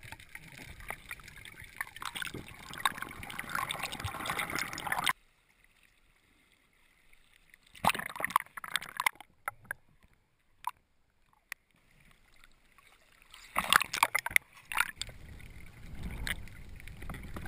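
Muffled underwater noise picked up by a submerged camera: water rushing and crackling around the housing. It cuts off abruptly about five seconds in, leaving a few scattered clicks and short bursts, and the rushing returns near the end.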